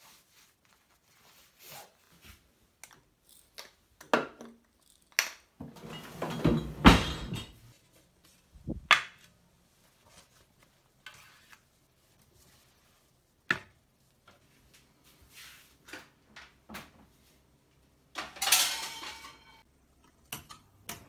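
Kitchen handling sounds: scattered clinks and knocks of dishes and metal cookware. There are two longer clattering passages, one about six seconds in and one near the end.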